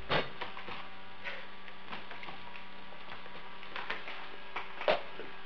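Steady low electrical hum with a few light clicks and crackles from a plastic water bottle being handled at its cap. The sharpest click comes just after the start.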